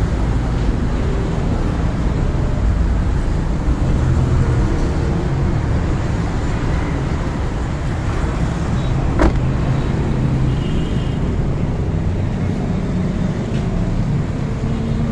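Car running, a steady low rumble, with one sharp click about nine seconds in.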